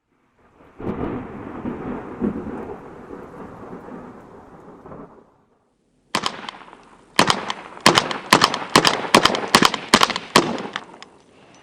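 A thunder-like rumble that fades over about four seconds. Then, after a short silence, a fast string of about a dozen sharp gunshots, roughly three a second.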